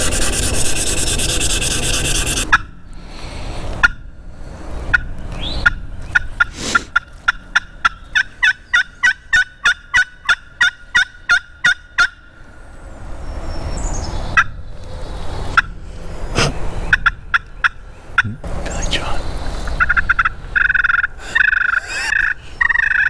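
Handheld wooden turkey call worked by a hunter to get gobblers to answer. It opens with a rattling, gobble-like burst, and after some scattered clicks goes into a long run of sharp, evenly spaced call notes, about four a second.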